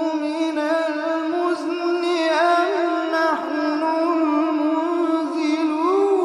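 Quran recitation: a single voice chanting in the melodic tajweed style, holding long, ornamented notes.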